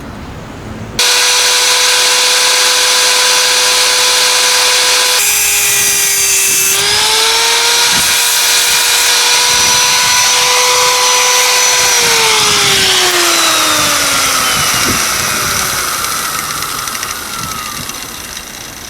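Electric power tool switched on with a steady whine, bogging down under load for a second or so while working the fire stand's metal, then running free again and slowly winding down in pitch over several seconds after it is switched off.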